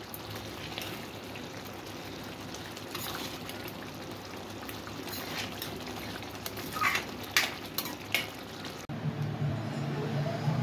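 Thick spinach and gatte curry simmering and sizzling in a steel kadhai, with a ladle stirring and clinking against the pan several times. About nine seconds in, this cuts off abruptly and a low steady hum takes over.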